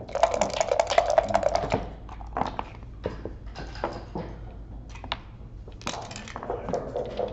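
Backgammon dice rattled in a dice cup, a dense clatter for about the first two seconds. Then comes a string of separate clicks and clacks as the dice land and checkers are slid and set down on the board.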